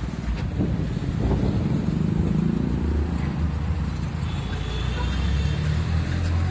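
Motor vehicle engine running, a low steady rumble, as from the wheel loader working the earth piles or a car idling close by.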